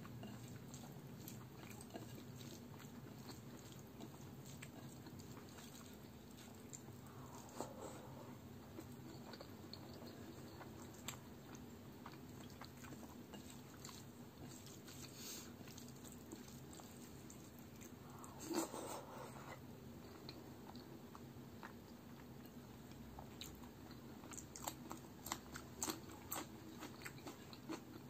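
Close-miked eating sounds: fingers mixing rice with palak chicken curry on a plate, and chewing, made up of faint scattered wet clicks and smacks. A louder burst comes about two-thirds of the way in, and a run of sharper clicks near the end.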